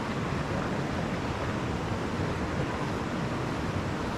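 Steady rush of a rocky mountain stream flowing over boulders.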